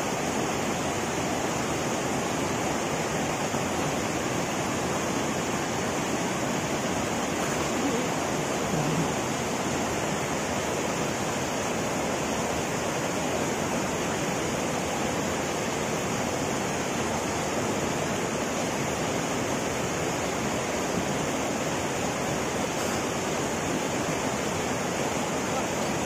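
Muddy river in flood after rain, rushing steadily.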